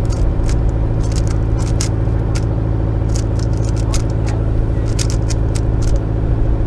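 A sailboat's engine running steadily under way, with many sharp clicks and rattles over it.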